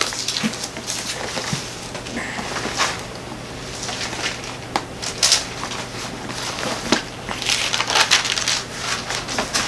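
Pages of a Bible being leafed through: irregular papery rustles and crinkles, with a few sharper crackles in the second half.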